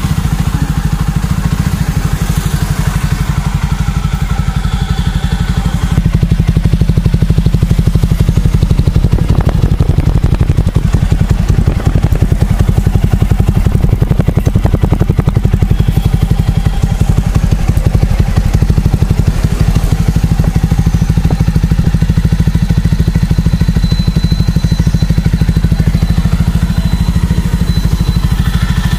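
Jawa motorcycle's 293 cc single-cylinder engine idling steadily through its twin silencers, freshly started, with an even, rapid firing beat. It grows a little louder about six seconds in.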